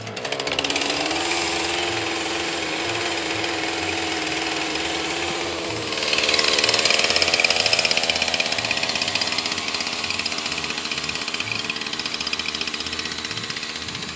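Poulan Pro PP5020AV two-stroke chainsaw starting and running on its newly replaced ignition module, a sign that the repair worked. It runs evenly at first, then speeds up about six seconds in and runs faster and louder until it cuts off near the end.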